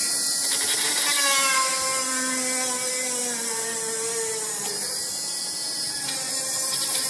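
Small PCB drilling machine's motor running with a steady whine as it drills holes in a printed circuit board for through-hole components. Its pitch wanders up and down a little.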